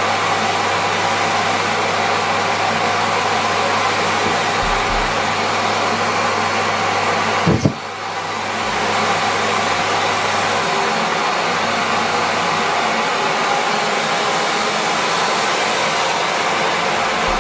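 Miele Complete C3 canister vacuum cleaner running steadily at full suction. About halfway through there is a brief knock, and the sound dips for a moment before building back up.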